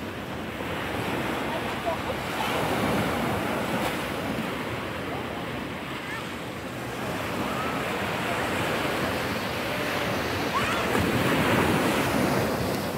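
Shallow surf washing up over a sandy beach and draining back, swelling and easing, louder about three seconds in and again near the end, with wind buffeting the microphone.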